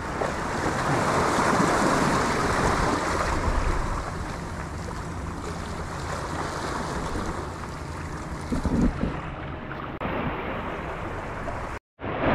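Sea waves washing and breaking against the concrete tetrapods of a breakwater, with wind buffeting the microphone. The sound cuts out for a moment near the end.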